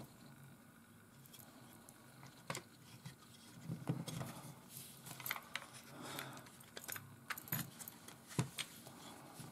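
Faint, irregular light clicks and taps of small plastic parts being handled as a multimeter's circuit board is set back into its plastic case.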